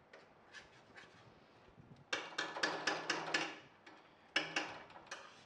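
Metal spatula scraping and knocking against a steel kadhai while stirring a thick masala paste as it roasts on low heat. There is a quick run of clicks and scrapes about two seconds in and another shorter run near the end.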